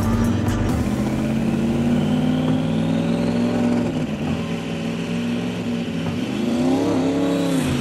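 Diesel truck engine running at a steady pitch, then revving up and falling back down near the end.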